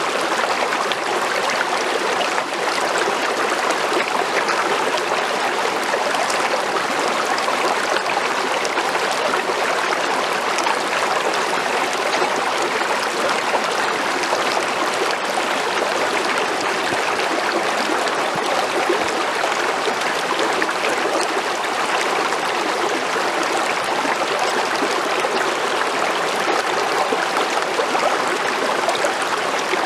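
Water of a small creek flowing steadily over rocks, a continuous rushing with gurgles and trickles.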